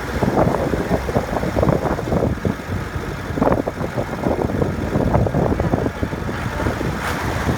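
Diesel engine of a heavy farm machine running, with an uneven, churning note.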